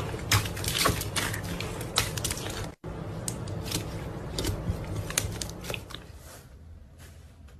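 A hand squishing and pressing crunchy slime packed with foam beads, giving dense, irregular crackling and popping. The sound breaks off for an instant about three seconds in, then thins out and grows quieter over the last couple of seconds.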